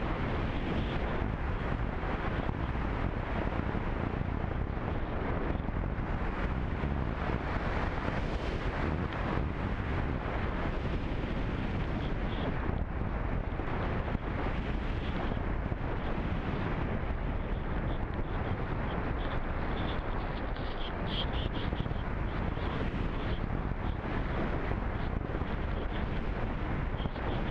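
Steady rush of wind over the microphone of a camera riding on a radio-controlled slope-soaring glider in flight. A faint high whine comes and goes in the second half.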